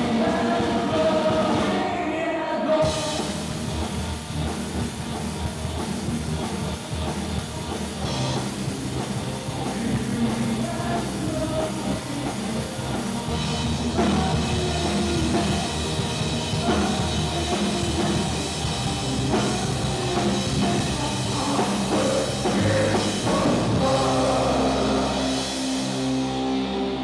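Live rock band playing: electric guitars, bass guitar, keyboard and drum kit, with a singer's voice over them.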